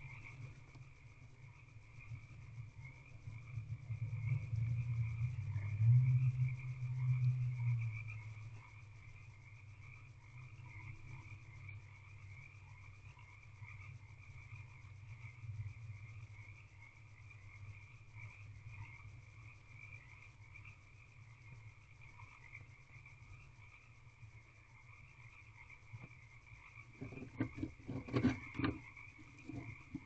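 A frog chorus calling steadily, a continuous rippling drone. A low rumble swells from about four to eight seconds in, and near the end a few knocks and scrapes come as the barn owl shifts and turns inside the wooden nest box.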